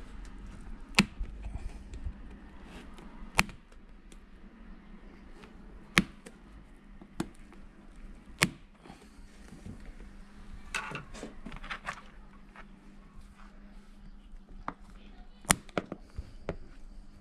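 Manual staple gun firing staples into a motorcycle seat, several sharp clacks a few seconds apart over a faint steady hum.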